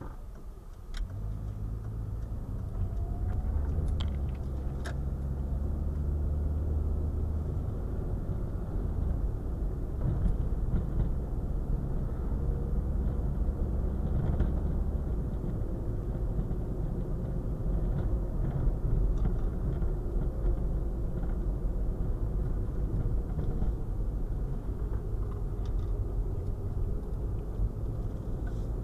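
Car driving, heard from inside the cabin: a steady low engine and road rumble that grows louder over the first few seconds as the car picks up speed, then holds steady, with a few faint clicks in the first five seconds.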